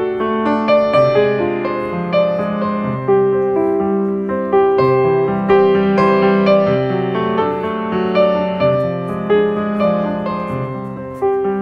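Background piano music: notes struck one after another and left to ring and fade.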